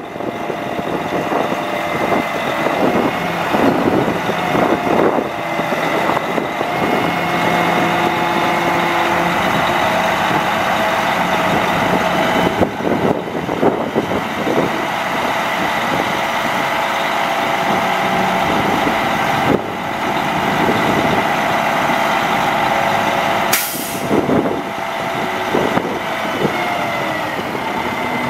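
Caterpillar C12 diesel of a Sterling dump truck running while the hydraulic hoist raises the dump body, with a steady whine over the engine. There is one brief sharp noise about two-thirds of the way through.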